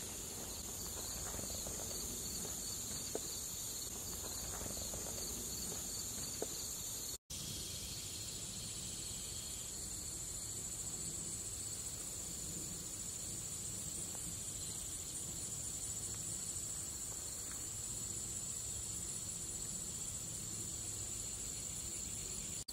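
Steady chorus of insects trilling, a continuous high-pitched buzz with a fine pulsing texture. It cuts out for an instant about seven seconds in, then resumes.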